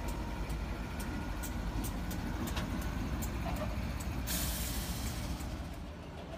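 NR class diesel-electric locomotives rolling slowly past at close range: a steady low engine rumble with scattered sharp clicks from the wheels on the rail. A little past halfway, a burst of air-brake hiss lasting about a second.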